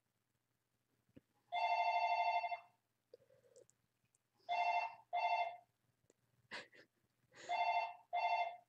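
A phone ringing with an incoming call: one longer ring about a second and a half in, then two pairs of short rings, each a steady pitched tone.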